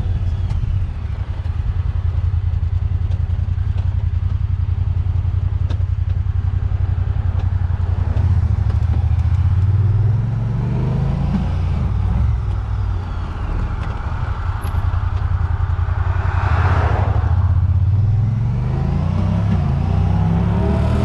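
Honda Pioneer 1000-5 side-by-side's parallel-twin engine running on the road, its hum rising and settling with speed changes. A brief rushing whoosh about two thirds through.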